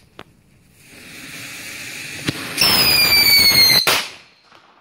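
Magicien du Feu 'Scream' firecracker going off: its fuse hisses and builds, then a loud, falling, screaming whistle lasts just over a second and ends in a sharp bang near the end.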